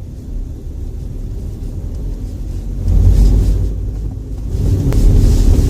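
Opel Meriva B driving, heard from inside the cabin: a low rumble that swells twice, around three seconds in and again near the end. Under it is the grinding noise from the centre console behind the radio, which comes back whenever air recirculation is off; the owner links it to the air recirculation mechanism.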